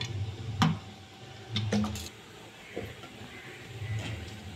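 Stainless-steel mixer-grinder jar being handled: a little water poured over the spice ingredients, then several sharp metal clicks and knocks as the lid is fitted, the loudest about half a second in.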